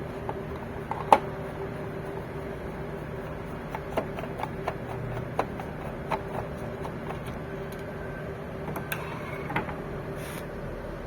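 Scattered clicks and taps of a screwdriver and the printer's plastic and metal parts being handled while the Epson L5190's power supply is unscrewed and lifted out, the sharpest click about a second in. A steady low hum runs underneath.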